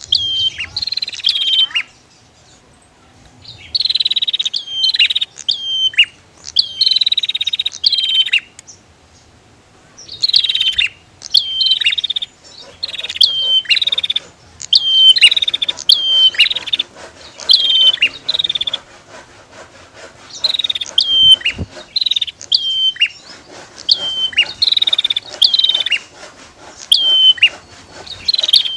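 Prinias (prenjak) calling: loud, high, buzzy phrases, each ending in a sharp downward sweep, repeated over and over in quick groups with short pauses between them.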